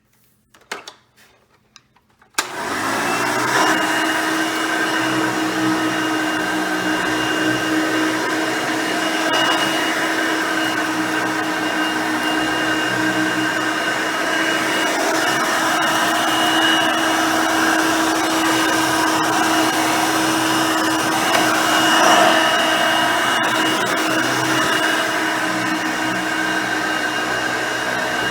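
A few clicks, then a Hoover Elite vacuum cleaner with a 5-amp motor is switched on about two seconds in. It spins up and runs steadily with a constant hum.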